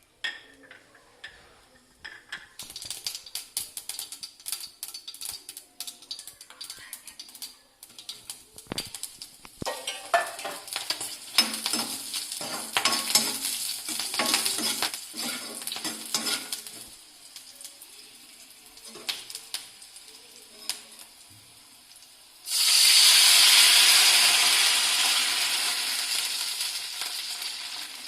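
Cooking sounds in a kitchen: scattered clicks and crackles of stirring and sizzling. About three-quarters of the way in, a loud sizzling hiss starts suddenly, as of liquid hitting a hot pan, and fades away gradually.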